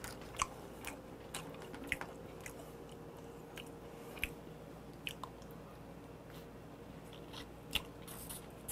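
Quiet eating sounds of raw shrimp sashimi eaten by hand: faint chewing and scattered small, sharp clicks, over a faint steady hum.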